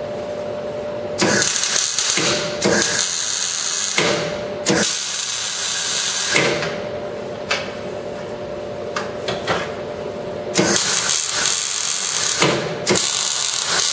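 MIG welder arc crackling in about five bursts of one to two seconds each, separated by short pauses and one longer pause in the middle, as steel mounting brackets are welded onto a radiator frame. A steady hum is heard in the pauses.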